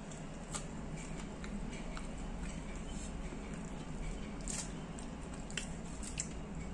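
A person biting into and chewing a crispy battered banana fritter (pisang goreng): a few soft crunches and mouth clicks scattered over steady room tone.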